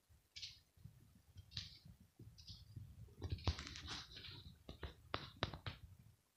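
Close rustling and scratching with a run of sharp clicks from the camera being handled and shifted, over a low rumble. The scraping is densest a little past halfway, and five quick clicks follow near the end.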